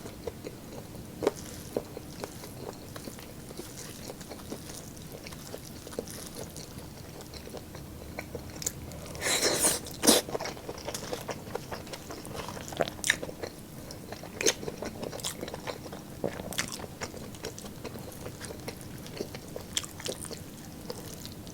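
Close-up chewing and biting of roast lechon meat, with wet smacks and crunchy bites scattered throughout and one louder, longer crunch about nine seconds in.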